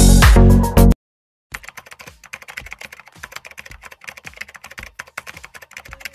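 Loud music that cuts off about a second in, then a half-second of silence, then a rapid, irregular run of computer-keyboard typing clicks used as a sound effect.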